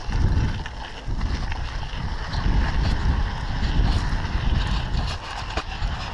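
Wind rushing and buffeting on the microphone of a camera riding along on a mountain bike on a dirt singletrack, with scattered small clicks and rattles from the bike.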